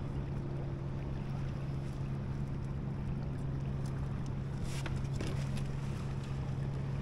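Boat motor running steadily with a low, even hum, and a few faint ticks about five seconds in.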